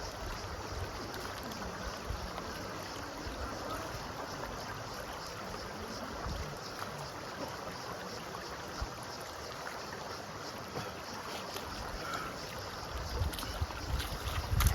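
Steady rushing of a flowing stream, with wind buffeting the microphone in low gusts near the end.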